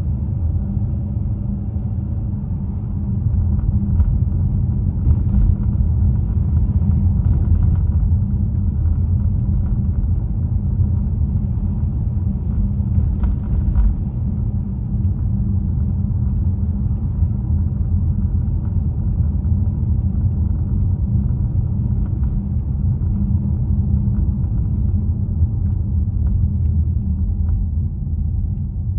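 Steady low rumble of a car being driven, tyres and engine, a little louder from about three seconds in, with a few faint ticks along the way.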